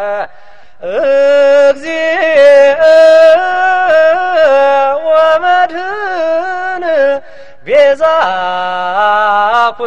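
A man sings an Ethiopian Orthodox hymn solo, in long held notes ornamented with turns and slides. He breaks off briefly about a second in and again near the seven-second mark.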